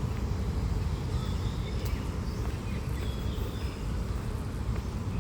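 Outdoor park ambience: a steady low rumble, such as distant traffic or wind on the microphone, with a few faint high chirps, like birds.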